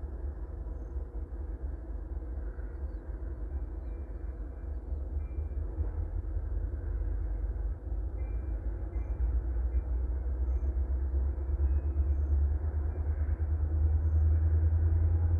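Distant diesel locomotive prime movers rumbling as they work a rail yard, growing louder in the second half. Faint brief wheel squeals are heard now and then.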